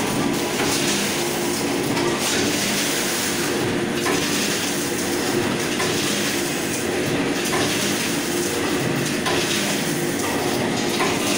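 Vertical form-fill-seal snack packing machine running steadily, filling, sealing and cutting off packets.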